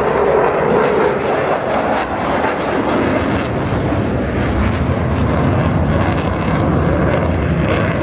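Eurofighter Typhoon jet flying a display, its twin turbofan engines making a loud, steady rumbling noise that shifts slightly as it passes.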